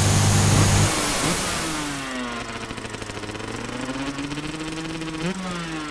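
A burst of TV-static hiss with a low buzz cuts off about a second in. A motorcycle engine follows, running and revving: its pitch climbs slowly, then jumps up twice near the end.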